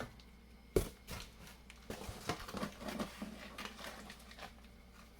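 Food packages being handled and set down: a single knock about a second in, then a run of light clicks and packaging rustles that dies away near the end.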